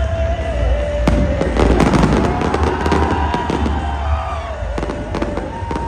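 Fireworks crackling and popping in rapid clusters, densest about two seconds in, over loud music with a heavy bass and held notes.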